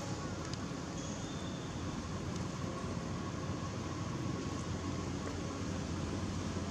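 Steady low rumble and hiss of outdoor background noise, with a few faint ticks.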